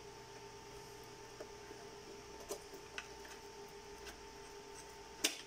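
Light plastic clicks from ribbon-cable connectors being worked loose and unplugged from a circuit board: a few soft ticks, then a sharper click near the end, over a faint steady hum.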